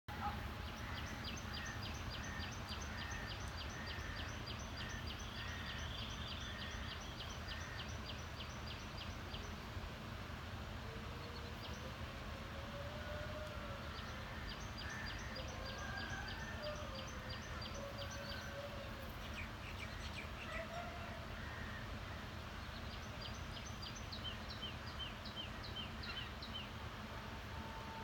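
Birds calling: rapid series of high, evenly repeated chirps, about three to four a second, in three bouts, with fainter lower gliding calls between them. Under them runs a steady low background noise.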